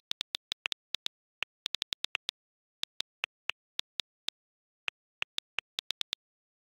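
iPhone on-screen keyboard clicks: about two dozen quick, irregular ticks as a message is typed, with a couple of short pauses.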